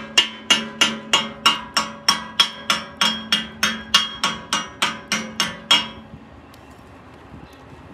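Chipping hammer knocking slag off a fresh 7014 stick-weld bead on steel plate: sharp ringing metal strikes, about three a second, that stop about six seconds in.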